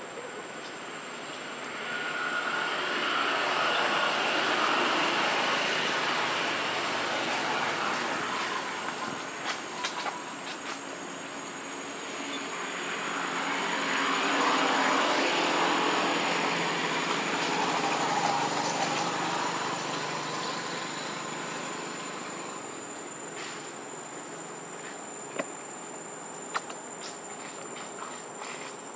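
Insects droning in the trees: a steady high-pitched whine with a louder chorus that swells and fades twice. A couple of sharp clicks come near the end.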